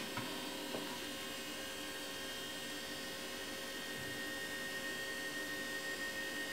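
Mitsumi Newtronics D509V3 5.25-inch floppy drive running with a steady hum and a thin high whine that grows stronger about four seconds in, with one faint click just under a second in. The drive is failing to read the disk (track zero bad), and the owner suspects its spindle motor is not spinning properly.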